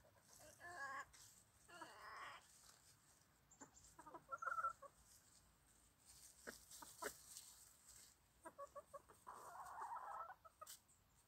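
Bantam chickens clucking faintly as they forage: scattered short calls, a quick run of short clucks about eight and a half seconds in, then a longer call of about a second near the end.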